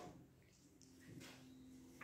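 Near silence: faint room tone in a classroom.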